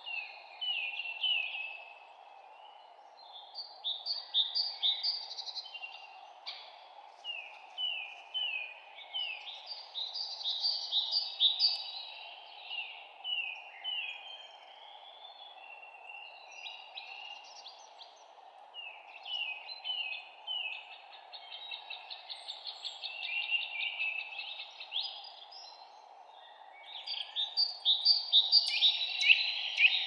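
Several songbirds singing in a spring forest, flurries of quick high chirping phrases every few seconds, loudest near the end, over a steady low background noise.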